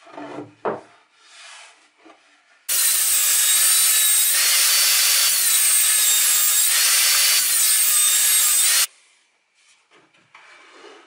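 Table saw cutting a 25 mm plywood (multiplex) board: loud cutting noise with a high blade whine that shifts in pitch, starting abruptly about three seconds in and stopping just before nine seconds. Light knocks of the boards being handled come before and after it.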